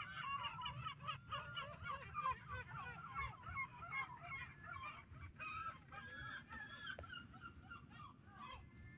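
A flock of birds calling, with many short calls that rise and fall in pitch and overlap, over a low rumble.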